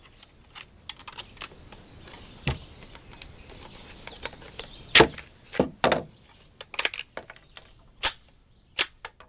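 Mossberg 715T .22 LR semi-automatic rifle being worked and fired: a series of sharp cracks and metallic clicks, the loudest crack about five seconds in and a quick run of clicks just before seven seconds.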